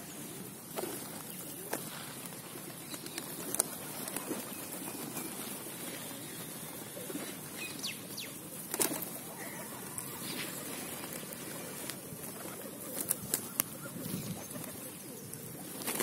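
Feral pigeons flapping their wings as they take off and land among a feeding flock. Sharp wing claps come here and there, the loudest about nine seconds in and a quick cluster around thirteen seconds.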